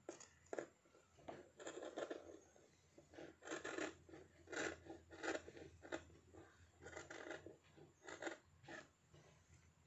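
Large tailor's scissors snipping through dress fabric and a paper pattern to cut out a neckline. The snips come in an irregular series, some in quick runs of two or three.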